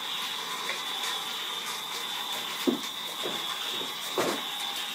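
Battery-powered plastic toy train running along plastic track, its small motor making a steady whirring hiss, with a few light knocks from about halfway through.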